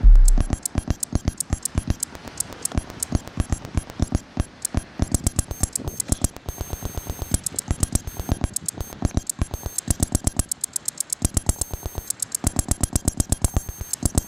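Live generative electronic sound: a fast train of synthesized clicks, several a second, with high steady beeping tones coming and going over it from about halfway through, and a deep bass thump at the very start.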